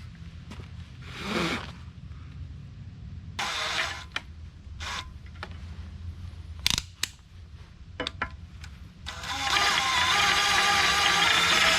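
Scattered knocks and clinks of metalwork handling over a low hum, then an electric drill spins up about nine seconds in and runs steadily while drilling holes through steel.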